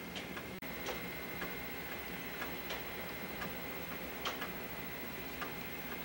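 Light ticking of some mechanism, about two ticks a second at uneven spacing, over a steady low hum and a thin high steady tone.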